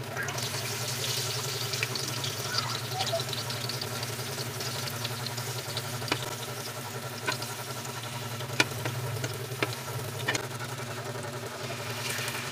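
Banana fritters (maruya) frying in oil in a metal pan, a steady crackling sizzle with a low hum underneath. A metal spatula clicks sharply against the pan about five times in the second half.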